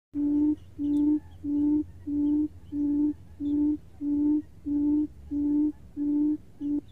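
Buttonquail's deep hooting lure call: eleven short, steady, even-pitched hoots, about one and a half a second, with faint high chirps from other birds between them.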